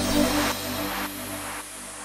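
Background electronic music ending: the beat stops and the last notes fade away with a few faint echoing repeats.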